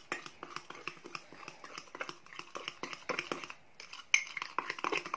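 Spoon stirring mug-brownie batter in a ceramic mug, scraping and clinking against the mug's sides and bottom in quick, repeated strokes.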